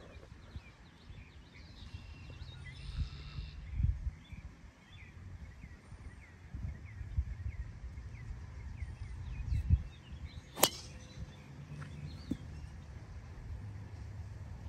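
Golf club striking a ball once, a sharp crack about ten seconds in, over outdoor ambience with birds chirping and a low rumble.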